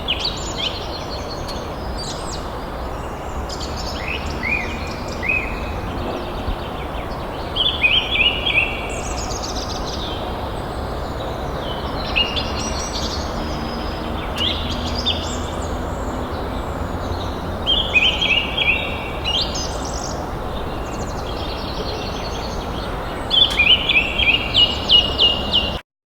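Forest birds singing over a steady background hiss: varied chirps and whistled phrases, with loud rapid runs of repeated notes about a third, two thirds and nine tenths of the way through. The sound cuts off suddenly near the end.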